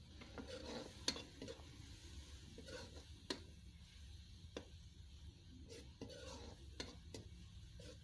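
Metal spatula stirring a thick tomato-and-onion masala in a kadai, scraping and clicking against the pan every second or so, with a faint sizzle of frying.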